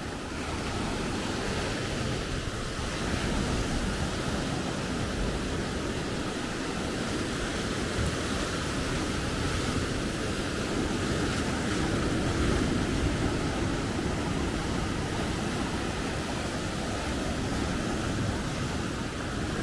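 Sea surf breaking and washing over shoreline rocks, a steady wash of water, with wind rumbling on the microphone.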